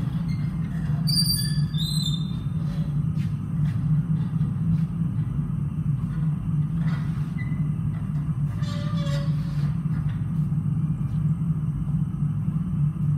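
Steady low hum of running shop equipment, with a few short high metal squeaks and light clinks in the first two seconds as red-hot stainless steel bar is wrapped around a jig post in a post vise.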